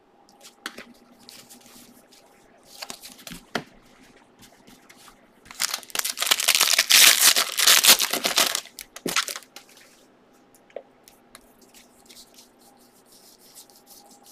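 A foil trading-card pack being torn open and crinkled by hand: a loud rustling tear about five and a half seconds in, lasting about three seconds. Softer ticks and rustles of cards being handled come before and after.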